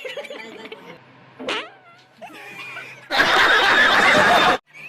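Laughter and snickering, then about three seconds in a loud fart sound effect that lasts about a second and a half and cuts off abruptly.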